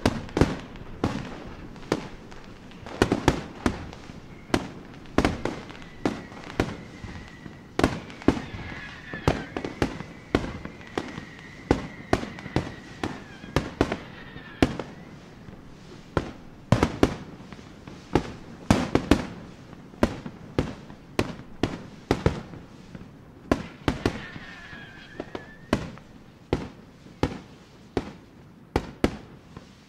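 Fireworks display: a steady irregular string of aerial shell bangs, often one to three a second. Each bang trails off briefly.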